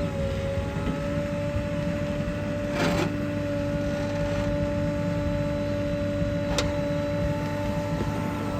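Heavy diesel earth-moving machinery running steadily: a low engine rumble with a constant high whine on top, and a couple of short knocks.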